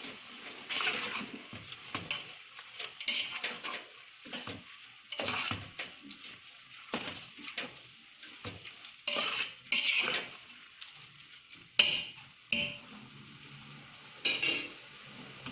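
A metal utensil stirring and scraping in a cooking pot as mint leaves fry with onions and ginger-garlic paste, with sizzling under it. Irregular scrapes and clinks, with one sharp clink about twelve seconds in.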